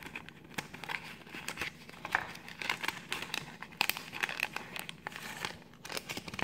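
Paper and clear plastic packaging handled and crinkled by hand: irregular rustling with small crackles.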